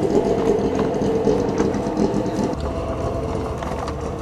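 Car engine idling steadily, with a few light clicks on top.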